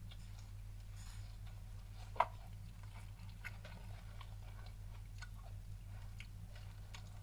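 A person eating deep-fried spicy skewers: faint chewing and small crunching clicks, with one sharper click about two seconds in.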